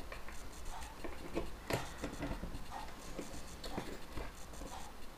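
Pliers gripping and turning the lens fixation ring on a small FPV camera, making irregular small clicks and scrapes, with one sharper click about 1.7 seconds in.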